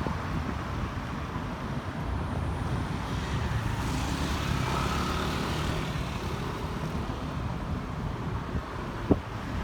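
Steady low rumble of passing road traffic in a city street, with wind on the microphone. A single sharp click sounds near the end.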